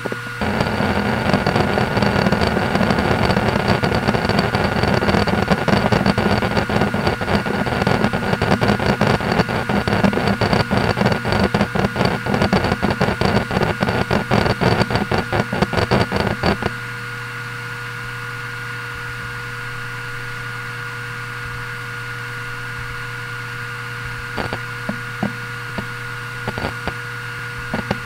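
Toshiba X300 Performance 6TB 7200 rpm hard drive (HDWR460) running a read/write benchmark: a dense, rapid clatter of head-seek clicks over the steady hum of the spinning platters. The seeking stops about 17 seconds in, leaving only the steady spin hum, and a few scattered seek clicks return near the end.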